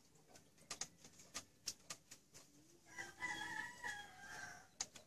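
A rooster crows once for nearly two seconds past the middle, over scattered splashes and drips of water as a scalded rabbit carcass is lifted from and dunked back into a pot of hot water.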